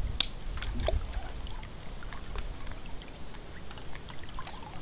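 Light water trickling and dripping, with one sharp click just after the start and small scattered ticks.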